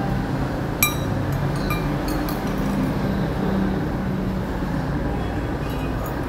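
Metal spoon and fork clinking against a ceramic soup bowl: one sharp ringing clink about a second in, then a few lighter ones, over a steady low background rumble.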